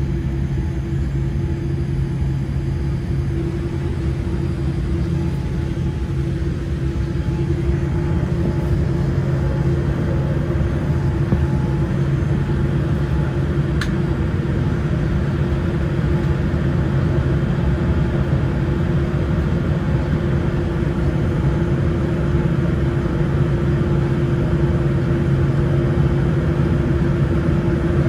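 Steady rumble of a moving vehicle heard from inside it, with a steady low hum, growing slightly louder about eight seconds in.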